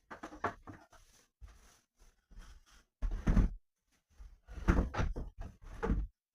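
Irregular knocks and thuds, as of objects being handled and set down, loudest about three seconds in and again in a cluster around five seconds.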